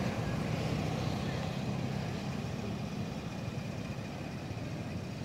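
Car engine running with a steady low rumble.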